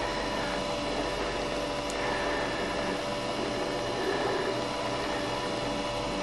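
A steady hum and hiss, unchanging throughout.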